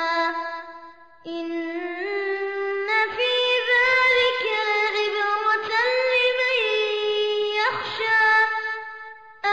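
A child's voice chanting Quran recitation in melodic murottal style, holding long drawn-out notes with ornamented turns between pitches. A short breath pause comes about a second in, and the voice trails off near the end.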